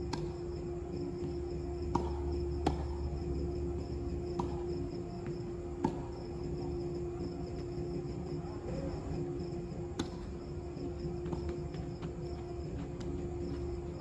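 Tennis ball struck by racquets in a doubles rally: a handful of sharp pops, starting with the serve and then one to several seconds apart. Underneath, crickets chirr steadily along with a constant low hum.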